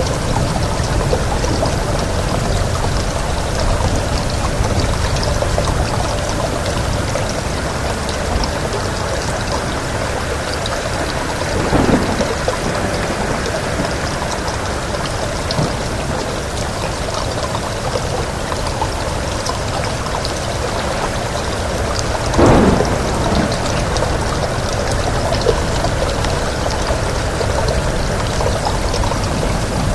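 Steady rain falling in a continuous dense hiss, with two brief louder swells, about twelve and twenty-two seconds in.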